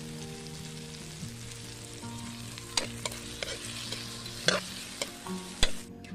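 Spider conch shells, tomatoes and onions sizzling in an aluminium wok as a metal ladle stirs them, with sharp clacks of the ladle and shells against the pan from about halfway through. The sizzling drops away just before the end.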